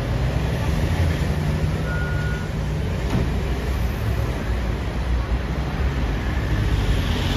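Vehicle engine rumbling steadily at low revs, with a brief high beep about two seconds in.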